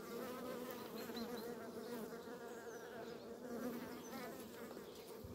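Honeybee colony buzzing as a steady hum over an open hive, with crowds of bees on the brood frame.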